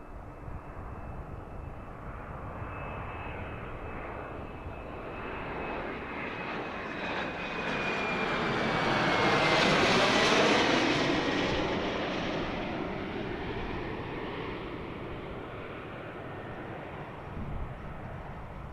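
F-35A fighter's single F135 turbofan jet engine passing by: the jet noise swells to a peak about halfway and then fades, with a high whine that drops in pitch as the aircraft goes past.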